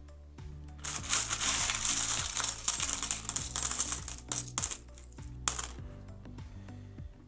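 Loose metal coins jingling and clinking together as a hand rummages through a tub of mixed coins, a dense rattle from about a second in until nearly five seconds, then a few single clinks. Soft background music underneath.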